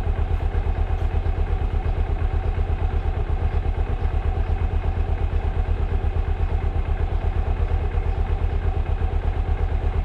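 Motorcycle engine idling steadily, an even low throb that doesn't change.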